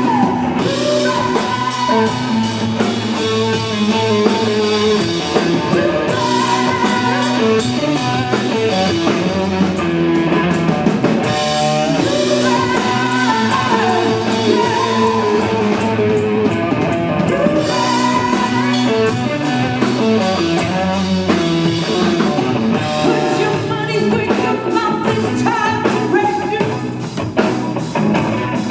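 Rock band playing a song: a singer over guitar and drum kit, loud and steady throughout.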